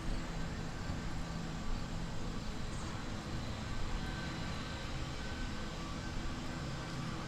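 Steady low mechanical rumble with faint steady humming tones, with no clear tapping or drumming in it.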